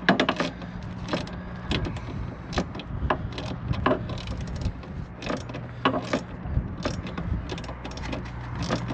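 Scattered, irregular clicks and knocks of hand tools and metal parts being handled during assembly, over a steady low hum.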